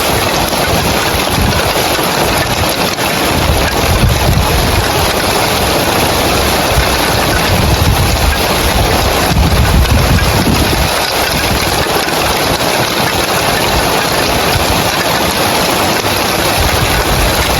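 Loud, steady rain falling on roof tiles, a dense even hiss, with low rumbling swells now and then.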